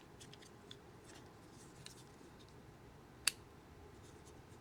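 Light clicks and taps of a small metal hand tool being worked by hand, with one sharp click about three seconds in.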